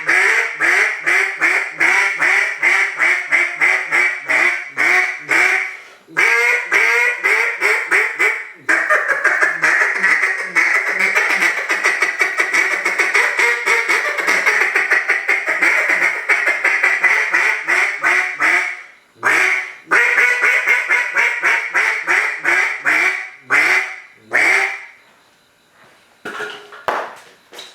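"Timber Tantrum" duck call blown in strings of rapid quacks, with a long, fast unbroken run of notes in the middle, broken by brief pauses. The calling stops shortly before the end.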